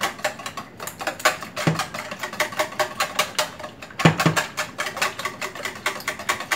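A wire whisk beating eggs in a plastic bowl: rapid, even clicking strokes as the wires rattle against the bowl's sides, with a louder knock about four seconds in.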